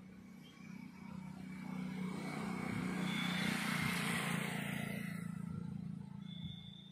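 A motor vehicle's engine passing by: the sound swells to a peak about halfway through, then fades away near the end.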